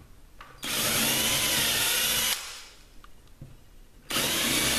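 Cordless drill with a small bit drilling pilot holes into the wooden deck of a strip-built kayak: two short runs of under two seconds each, the second starting near the end, each a steady whine.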